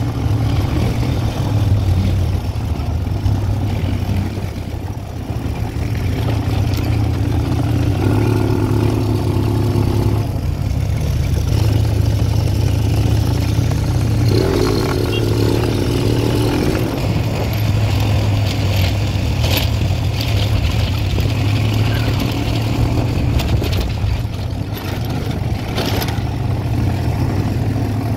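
Quad bike engine running steadily as it is ridden, with a higher engine tone rising above it twice for a couple of seconds and a few sharp knocks in the latter half.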